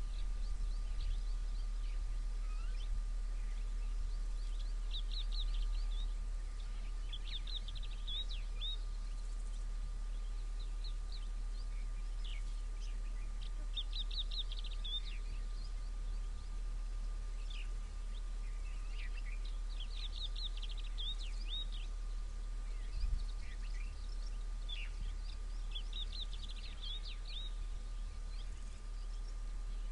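Bird song: a bird repeats a quick burst of high chirping notes about every six seconds, five times, with scattered single calls between, over a steady low rumble and a faint steady high tone.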